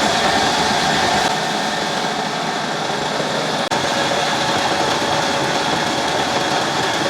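Sawmill machinery running with a steady mechanical din, its sound shifting abruptly about a second in and again near four seconds.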